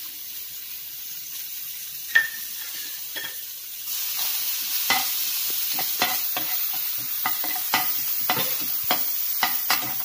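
Chopped onions sizzling in hot coconut oil in a steel pan. The sizzle grows louder about four seconds in. A sharp clink comes about two seconds in, and over the second half a slotted steel spatula scrapes and clicks against the pan as the onions are stirred.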